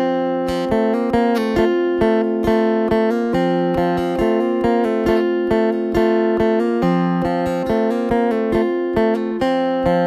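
Background music: a plucked-string instrumental played on the sape, the Bornean lute, with a quick run of picked notes over sustained drone notes.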